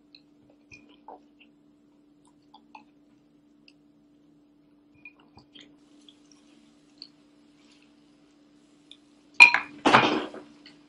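Scattered small clicks of dry cereal being picked from a bowl and eaten. Near the end come two loud clattering scrapes as hands dig into the cereal in the bowl, over a faint steady hum.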